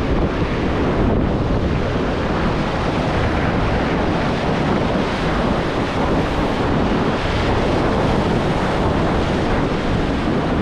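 Surf washing onto a beach mixed with wind buffeting the microphone: a steady, unbroken rushing noise heaviest in the low end.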